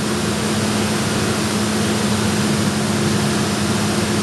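Oxyhydrogen (HHO) torch flame hissing steadily while cutting steel, over a constant low hum.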